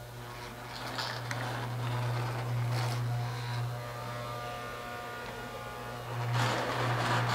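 Lionel model train running on its track: a steady low electric hum, with the running noise of the wheels on the rails growing louder about six seconds in as the locomotive comes close.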